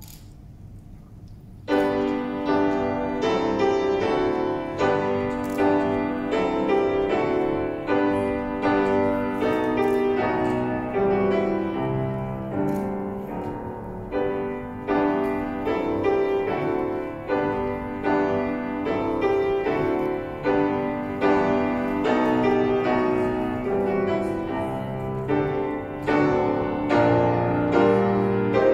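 Solo grand piano playing an intermezzo, a classical piece, beginning about two seconds in after a short hush and then running on with a steady flow of notes.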